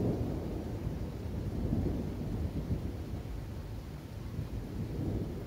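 Thunder rumbling in a long low roll, swelling again about two seconds in and then slowly dying away, over a soft hiss of rain.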